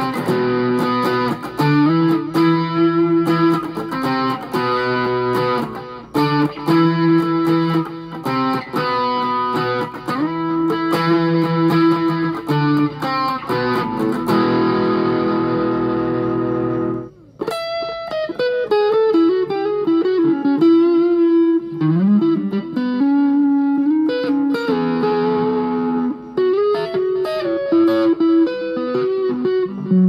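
Electric guitar played through an effects pedalboard with overdrive, digital delay and amp simulator engaged, heard through a small Orange combo amp. It plays held, sustained notes with a muffled top end. About seventeen seconds in the sound drops out briefly, and the playing resumes with a different tone: separate picked notes with some bends.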